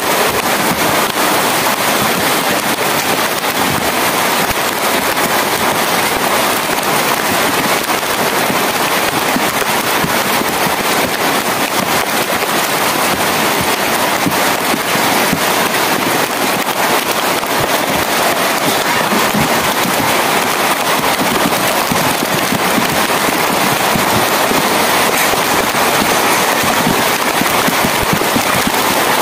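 Heavy rain falling steadily, a dense crackle of drops hitting surfaces with no letup.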